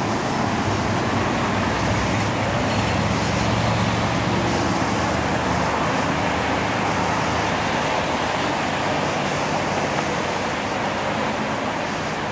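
Steady low rumble under a continuous noisy roar, much like distant city traffic. The recorder takes it for a strange sound in the sky.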